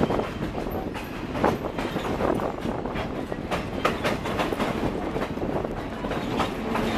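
Scenic excursion train rolling along the track, heard from an open-sided passenger car: a steady rumble and rattle with irregular clicks and clacks of the wheels on the rails.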